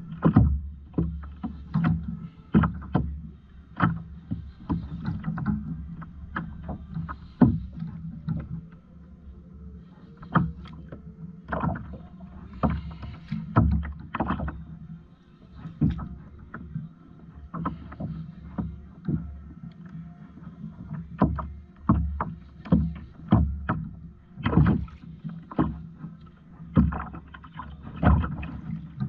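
Water slapping against a fishing kayak's hull, with many irregular knocks and thumps against the boat over a steady low rumble.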